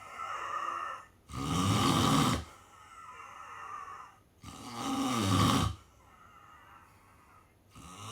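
Snoring in deep sleep: two loud snores about three seconds apart, each lasting about a second, with softer breathing between them and a fainter snore starting near the end.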